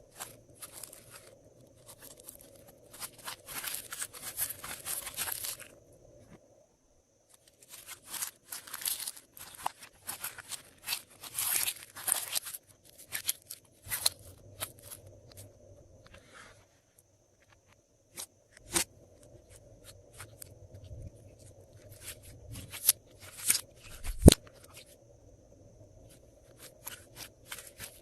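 Glossy slime being squished, stretched and folded by hand, giving runs of sticky crackling and clicking, with scattered sharp pops and one loud snap about three quarters of the way through.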